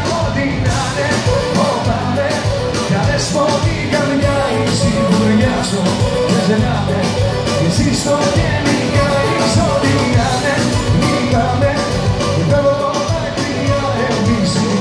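Live band playing loud amplified music with a steady beat, recorded from among the audience.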